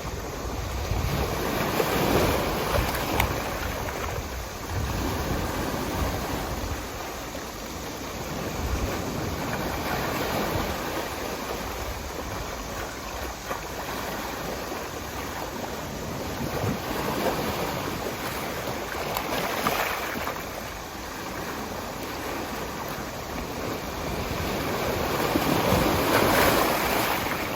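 Sea waves breaking on the shore: a steady wash of surf that swells and eases in slow surges every several seconds.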